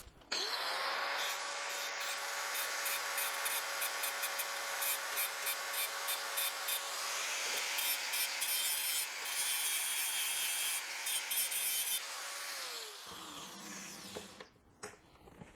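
Electric angle grinder spinning up and grinding on metal with a steady whine and scratchy, crackling noise, then switched off about twelve seconds in, its whine falling as it winds down.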